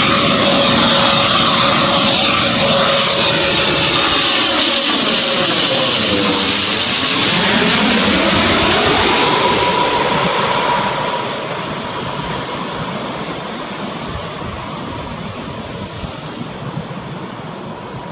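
Twin-engine turboprop airliner on final approach passing low overhead. The loud propeller and engine tone sweeps down in pitch as it goes over about seven seconds in. The sound then fades as the aircraft moves away toward the runway.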